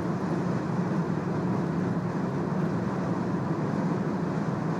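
Steady road and wind noise inside a car's cabin at high motorway speed: an even low rumble with hiss above it.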